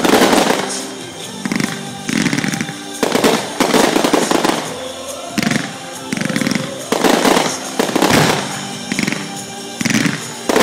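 Fireworks finale: aerial shells bursting one after another with crackling, about one burst a second, over music.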